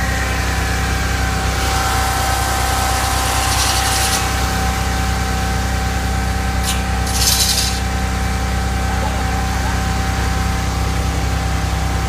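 Hydraulic hand-held concrete saw cutting into a concrete slab: a steady whine over a low drone, with two short bursts of hiss, about two seconds in and about seven seconds in.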